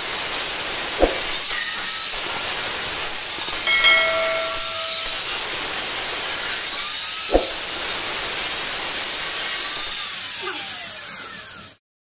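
Angle grinder with a cutting disc cutting into a stainless steel railing: a loud, steady hiss of the disc biting the metal, with a brief ringing tone about four seconds in and two short knocks. It stops abruptly near the end.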